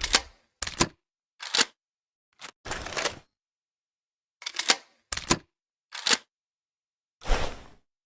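Double-barrel shotgun being reloaded between shots: a series of about eight sharp mechanical clicks and clacks, spaced out, as the action is opened, shells are swapped and the gun is closed.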